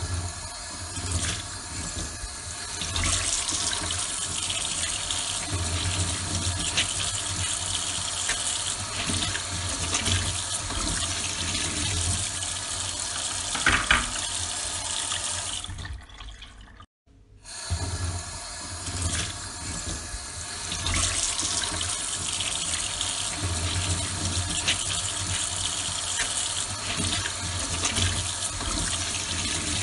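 Water spraying steadily from a small nozzle on a plastic tube and splashing over a plastic toy, with a low steady hum from the small DIY pump underneath. The sound cuts out briefly about halfway through, then starts again.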